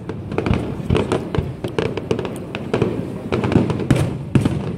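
Aerial fireworks bursting overhead: a dense run of sharp pops and crackles over repeated low thuds.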